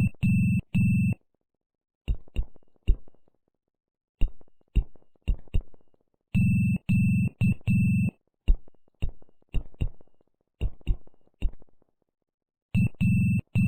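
Morse code sounded out as an electronic signal: long steady beeps for dashes and short clicks for dots. It opens with a group of three dashes, then runs of dots, another three dashes in the middle, more dots, and three dashes again near the end.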